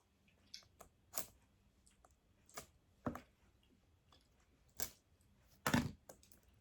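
Plastic packaging being handled and pried at to open it: scattered short clicks and crinkles, a louder crackle near the end.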